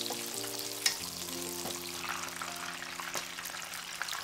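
Battered, shiso-wrapped sardine pieces deep-frying in hot oil: a steady crackling sizzle, with one sharp click about a second in.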